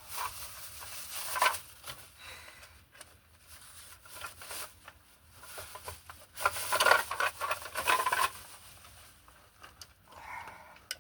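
Rustling and crunching handling noise with scattered small knocks, in two longer spells, from someone moving about in an attic.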